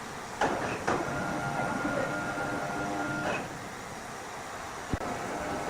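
A machine motor running with a steady multi-tone hum in a short spell, set off and ended by clunks. Another sharp clunk comes near the end, just before it starts up again.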